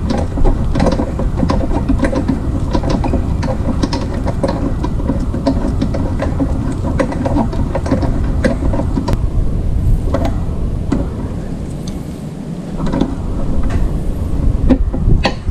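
A wrench tightening the rear brake caliper mounting bolts on a 2009 Yamaha FZ6R: a string of sharp metallic clicks that thins out after about nine seconds, over a steady low rumble.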